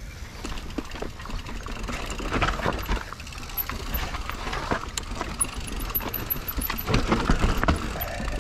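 Mountain bike ridden over a rough, rooty trail: irregular rattling and knocking from the bike and tyres, over a steady low rumble on the microphone.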